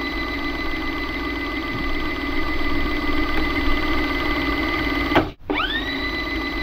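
Whirring fast-forward sound effect, like a small motor spinning up and running at a steady pitch with a rapid buzz. It cuts out for a moment about five seconds in and spins up again.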